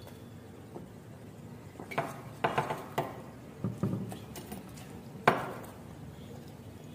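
Stainless-steel dishes and a steel tumbler clinking and knocking on a table: a cluster of knocks about two to four seconds in, then one sharp clank with a brief ring a little after five seconds.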